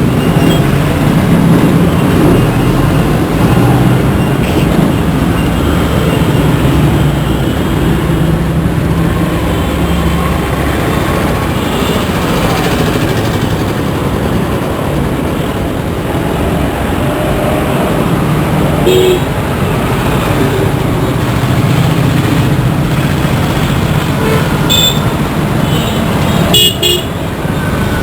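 Dense road traffic: engines running in a steady low rumble, with short vehicle horn toots about two-thirds through and a cluster of honks near the end.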